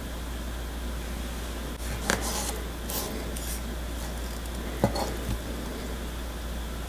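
A wooden fork clicking and scraping against a ceramic plate about five times, the sharpest click about two-thirds of the way through, over a steady low hum.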